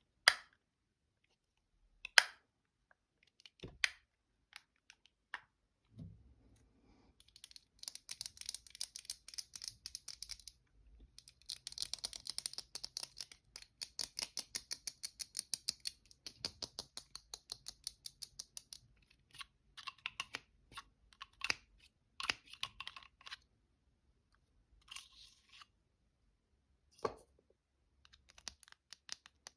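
Fingernails tapping on small travel cosmetic containers. A few separate sharp clicks come first, then fast, even tapping for about ten seconds, then scattered taps near the end.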